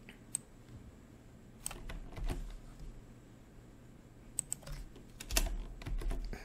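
Computer keyboard typing, with keystroke clicks coming in three short bursts.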